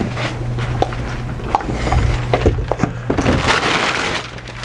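Large foam core sheets being handled and shifted by hand: scattered light knocks and thunks, with a stretch of scraping and rustling in the second half.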